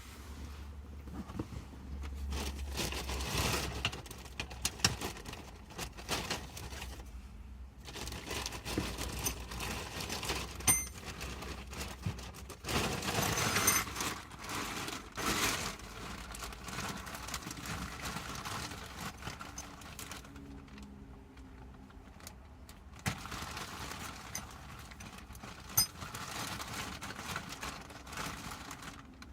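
Rustling, crinkling and scattered clicks of hands working at a car seat back, as foam and a shop towel are stuffed between the seat upholstery and its plastic back panel. The sounds come in irregular stretches with short pauses.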